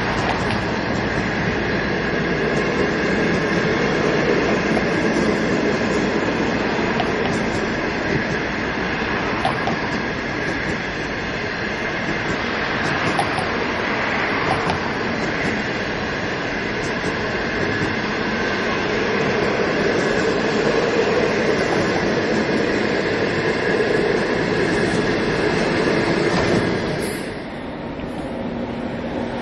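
Green China Railway passenger coaches rolling past close by, a steady noise of wheels running on the rails. The sound dips briefly near the end.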